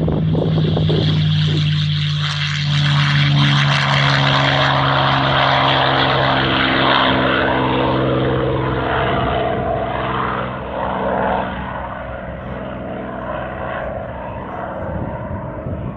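P-51 Mustang's V-12 piston engine running at takeoff power, a loud propeller-driven drone that fades about eleven seconds in as the plane pulls away.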